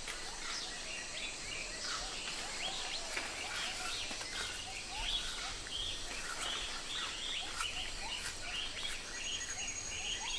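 Rainforest ambience: many birds chirping and calling in a busy, overlapping chorus over a steady background hiss, with a thin, steady high tone joining near the end.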